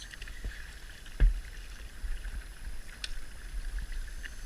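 Kayak paddling: paddle strokes moving through the water over a low, steady rumble, with one sharp knock about a second in.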